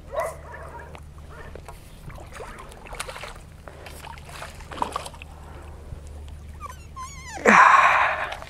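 A hooked tilapia thrashing at the surface of the lake, with one loud splash near the end as it is scooped into the landing net.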